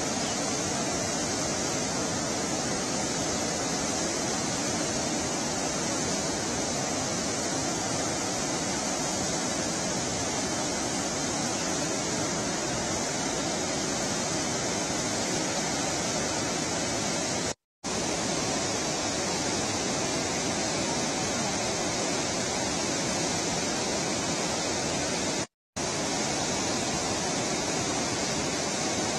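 Steady rushing of water pouring through a dam's open spillway gates, an even, unbroken roar. It drops out to silence for a moment twice, once past the middle and once near the end.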